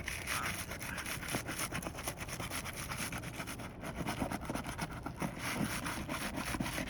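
Roof shingles being pried and lifted up, with continuous scraping and rubbing broken by many small crackling clicks as they come loose from the nails.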